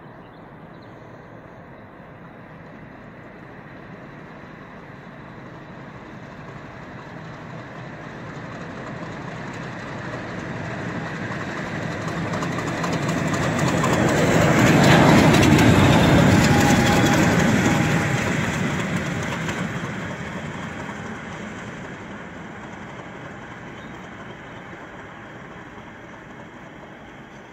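A Class 50 diesel locomotive, with its English Electric 16CSVT V16 engine, passes running light. It builds up as it approaches, is loudest about halfway through as it goes by, then fades steadily as it draws away.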